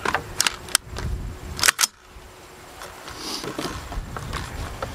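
AR-style rifle being readied with its magazine in: a few light metallic clicks as the magazine is pushed home and seated. A little under two seconds in comes a sharp double metallic clack as the action is worked.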